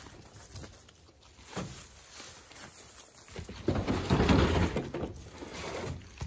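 Footsteps rustling through dry fallen leaves, then a plastic cooler dragged out across a pickup truck's bed, a loud scraping slide lasting a couple of seconds from a little past the middle.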